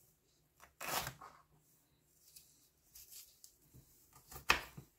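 A small knife cutting and trimming green bell pepper on a plastic cutting board: a few crisp slicing and scraping sounds, the loudest a short sharp one near the end.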